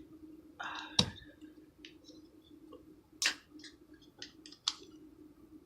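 Handling noises from working a thumbtack and a plastic Bic lighter: a few sharp clicks and small ticks, the loudest about a second in and after about three seconds, over a faint steady low hum.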